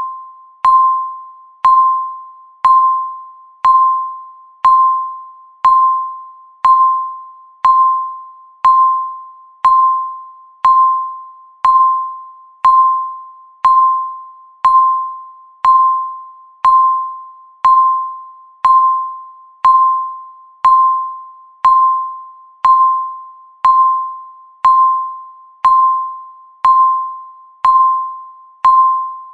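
Countdown timer's electronic beep, one short tone that starts sharply and fades quickly, repeating steadily once a second to mark each second counting down.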